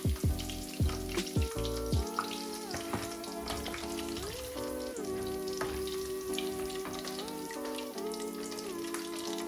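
Chicken pieces frying in hot oil: a steady sizzle with fine crackles. Background music plays alongside.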